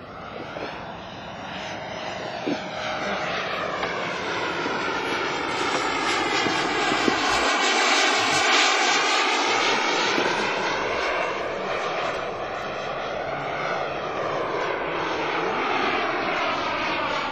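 Radio-controlled model jet flying past, its engine sound swelling to a peak about halfway through, easing off, and building again near the end as it comes round.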